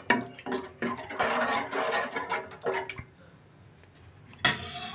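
A steel spoon stirring and scraping thin, watery curry gravy in a metal pot, with many quick scratchy strokes for about three seconds. Near the end comes one short, louder clatter.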